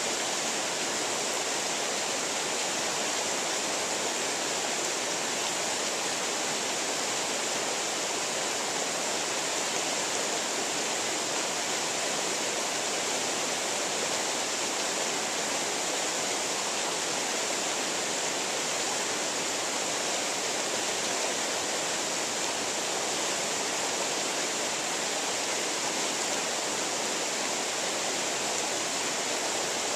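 Shallow creek rushing steadily over rocks, an even, unbroken water noise.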